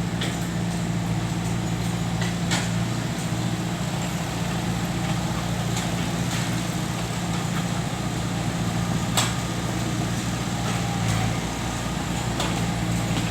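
Diesel engine of a heavy earthmoving machine running steadily, with a few sharp knocks, the loudest about nine seconds in.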